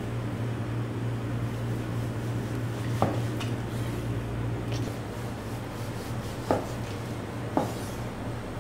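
Sharp knocks on a plastic cutting board as raw beef slices are handled: one about three seconds in and two more close together near the end, with a few fainter ticks, over a steady low hum.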